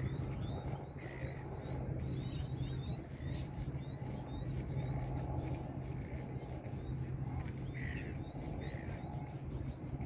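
Small birds chirping rapidly and without a break, many short high calls a second, over a steady low hum.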